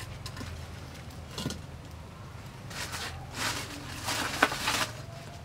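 Dry grass tinder rustling and crackling in an earthen wood stove as a fire is started. There is a single click about a second and a half in, then a dense run of crisp crackles from about three seconds in to near the end.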